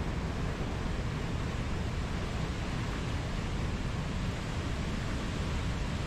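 Whitewater rapids and a waterfall in a rocky river gorge, rushing with a steady, even, deep noise.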